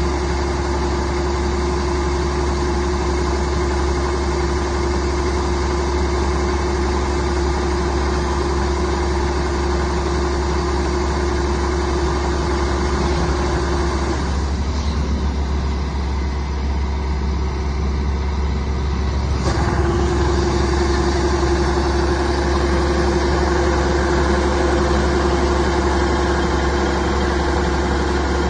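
Engine of rice-harvesting machinery running steadily, with a steady whine over it that cuts out for about five seconds past the middle and then comes back.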